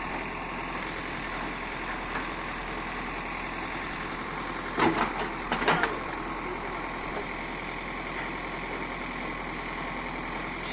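A heavy vehicle's diesel engine running steadily. About five seconds in there are a few sharp, louder knocks or clanks.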